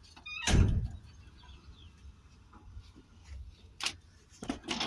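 Heavy steel engine-bay cover panels of a Tata Hitachi EX210 excavator being handled, with a loud metal thud about half a second in and several sharper knocks near the end.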